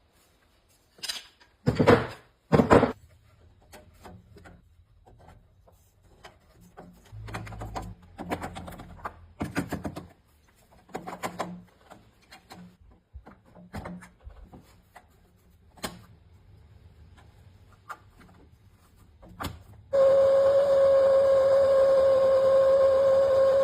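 Scattered knocks and clatter of tools and parts being handled, then a loud steady mechanical drone at one fixed pitch that starts suddenly near the end.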